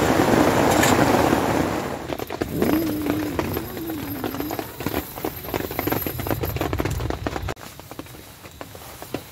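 Heavy rain pouring on a tent for about the first two seconds, then dropping to lighter rain with separate drops tapping on the tent fabric. A short wavering tone comes about three seconds in.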